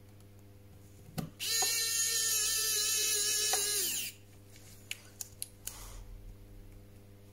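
Electric precision screwdriver spinning a small screw in a smartphone's internal frame: a steady high whine lasting about three seconds, starting a little over a second in with a click just before. A few light clicks follow.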